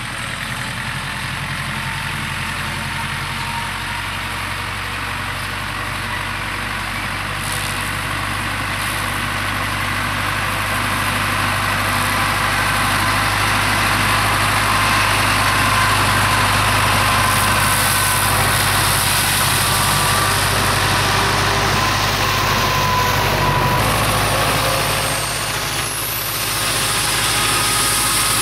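Ursus tractor's diesel engine running steadily under load while driving a rotary mower, growing louder as it comes closer. The engine note changes abruptly near the end.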